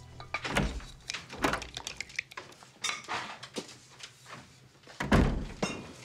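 Footsteps on a hard floor and light knocks of crockery being handled, with heavy thumps about half a second in, about a second and a half in and again about five seconds in.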